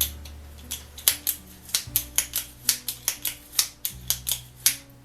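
Sharp metallic clicks, about three a second and irregular, from an old Goodell Bros. screwdriver being worked by hand, over background guitar music.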